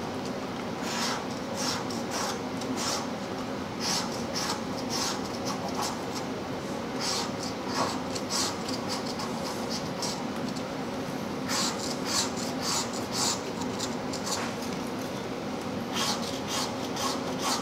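A coin scratching the latex coating off a lottery scratch-off ticket: runs of quick, short rasping strokes with brief pauses between them.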